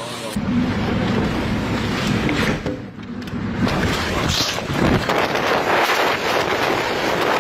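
Strong tornado wind buffeting a phone microphone: a deep rumble with a rushing hiss for about three seconds, a brief dip, then a louder, hissier rush of wind.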